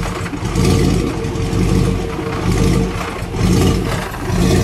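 Corvette LS3 V8 idling, heard at the rear of the car, with a deep, low exhaust note that swells and eases about once a second.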